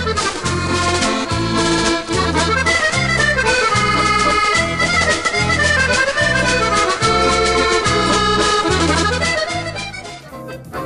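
Accordiola chromatic button accordion playing a quick melody over steady pulsing bass chords. Near the end the music dips and cuts to another recording.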